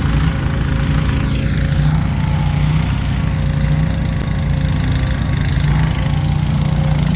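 Small engine of a mini excavator running steadily, with a fast low pulsing and a steady whine.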